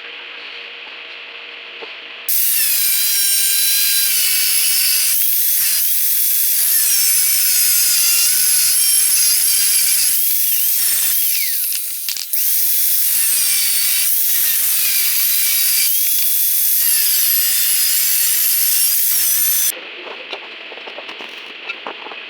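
A power tool running with a high whine and a rough hiss, starting abruptly about two seconds in. Its pitch dips and recovers several times as it bites into the work, and it breaks off briefly about halfway before running on until it cuts off near the end.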